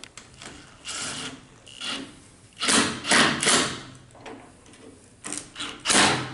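Screws of a multipoint door handle being tightened with a screwdriver: a string of short scraping strokes, three loudest ones close together about three seconds in and two more near the end.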